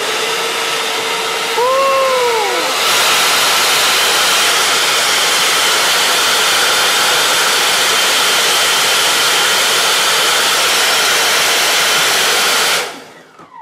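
Two electric ducted fans running hard, blowing air through a 3D-printed two-cylinder air engine: a loud, steady rush of air with a fan whine. It steps up twice in the first three seconds as the throttle opens, and a short tone rises and falls about two seconds in. The sound cuts off shortly before the end as the fans are shut down.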